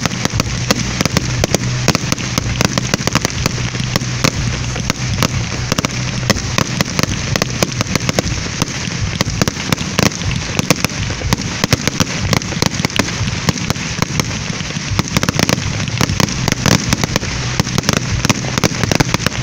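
Fireworks from ground spark fountains and small aerial bursts going off together: a dense, unbroken crackle of rapid sharp pops over a steady hiss.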